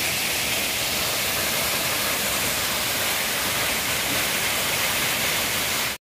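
Sirki waterfall's steady rush of falling water, heard close by as an even, unbroken hiss.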